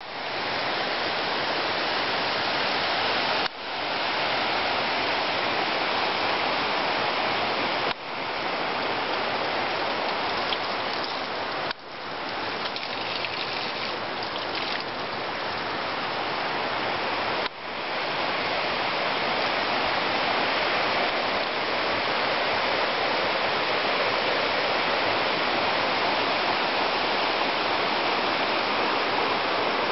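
Mountain river rushing steadily, a constant even noise of water. It drops out briefly four times and fades back in each time.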